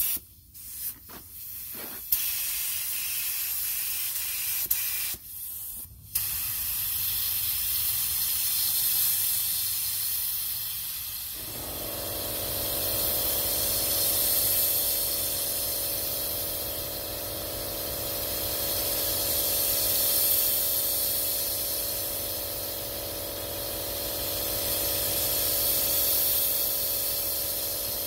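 Compressed-air gravity-feed paint spray gun hissing as it lays on a coat of 2K high build primer. It comes in short bursts as the trigger is pulled and released in the first few seconds, then runs as one continuous hiss that swells and eases with each pass. About eleven seconds in, a steady low hum joins it.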